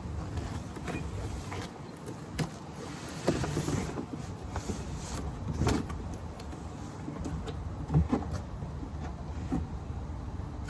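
Irregular rustling and knocks as an animatronic's parts are unpacked from its cardboard box, with a few sharper knocks, over a steady low rumble.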